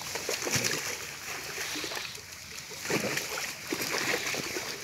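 Water splashing irregularly as fish thrash and leap inside a net being hauled into the shallows, with clusters of splashes about half a second in and again around three and four seconds in.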